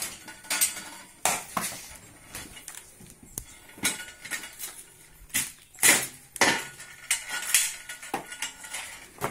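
Metal clanks and knocks from a hand-lever cocoa pod cutter, its blade brought down through pods on a steel frame. The loudest is a run of sharp clanks about every half second in the second half.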